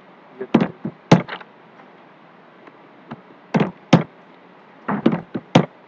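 Computer keyboard keystrokes: three short bursts of a few sharp clicks each, with pauses of about two seconds between them.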